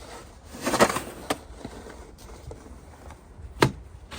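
Metal snow shovel scraping across the driveway in one loud stroke, with two sharp knocks of the blade after it.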